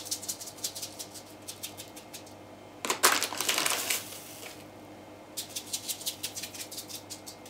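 Semolina sprinkled by hand onto buttered baking paper: a rapid patter of fine grain ticks in two spells, with a louder, denser rustle about three seconds in.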